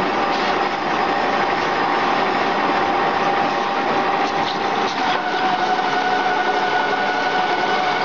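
Radiator recycling machine (copper–aluminium radiator cutter and separator) running: a steady machine noise with a steady whine, joined by a second, higher whine about five seconds in.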